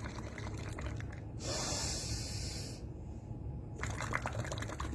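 Breath blown through a drinking straw into a glass of water, bubbling with a fine rapid crackle. About a second and a half in, a short loud hiss of breath breaks in. The bubbling starts again near four seconds in.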